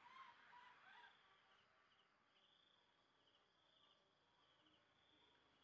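Faint insect trilling in a steady high band, pulsing in repeated short phrases, with a few faint short squeaks in the first second.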